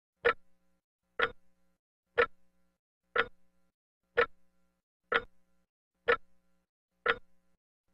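Eight sharp, clock-like ticks, evenly spaced about one a second, each dying away quickly.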